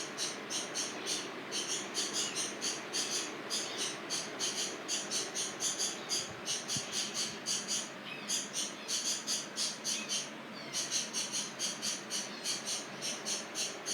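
Cricket chirping in a steady rhythm, about three high chirps a second, with two short pauses.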